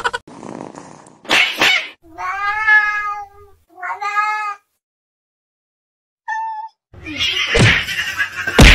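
Cats meowing: two drawn-out, wavering meows, then a short high call. Near the end comes a loud, noisy stretch as two cats fight.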